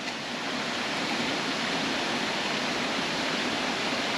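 Steady rushing of water from a waterfall stream.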